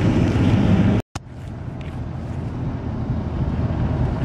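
Engine and road noise inside a truck's cab while driving at highway speed, steady with a low hum. It cuts out for an instant about a second in, then comes back quieter and slowly builds.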